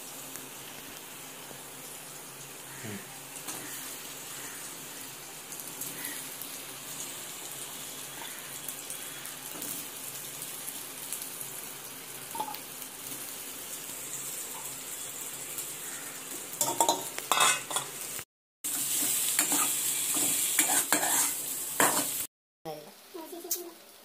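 Potato sticks, green chillies and masala sizzling in oil in an aluminium kadai, with a steel slotted spoon scraping and clinking against the pan as they are stirred. The sizzle grows louder for a few seconds near the end, broken by two short gaps.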